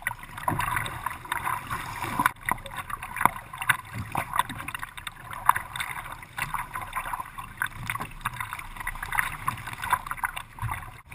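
Kayak paddle strokes dipping and splashing in choppy water, with water slapping against the kayak's hull close by in an irregular rhythm.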